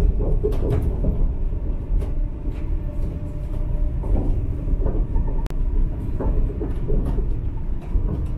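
Chiba Urban Monorail suspended monorail car running along its track: a steady low rumble with scattered short clicks and knocks.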